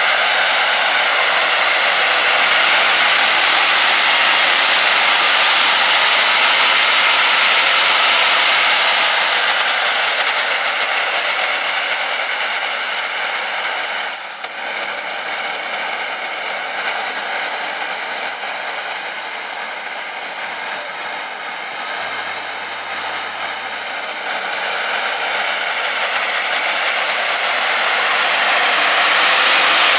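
Homemade experimental jet engine running loud and steady with a high whine. About halfway through, the whine drops in pitch and the engine eases off; near the end it climbs back up.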